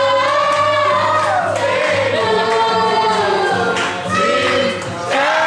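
A group of voices singing a gospel-style song together, with long held notes.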